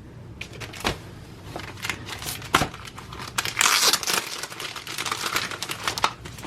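Packaging being handled and crinkled: a run of short rustles and crackles, with a denser burst of crinkling a little past the middle.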